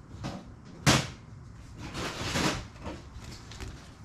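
Hand tools and parts being handled: a sharp knock about a second in, then a brief rustling scrape and a few lighter clicks.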